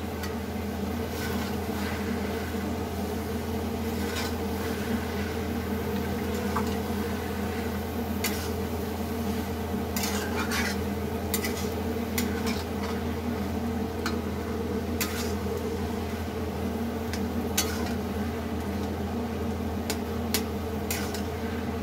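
A metal spatula scraping and knocking against an iron kadai as grated carrot and khoa are stirred together, with scattered sharp clicks over a steady low hum.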